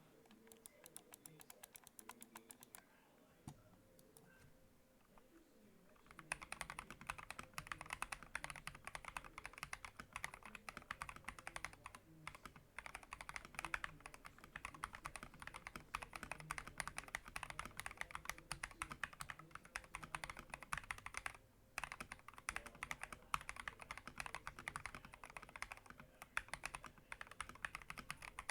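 Mechanical keyboard with Akko Rose Red linear switches and PBT XDA keycaps being typed on. A few faint light clicks, then fast continuous typing from about six seconds in, with two brief pauses.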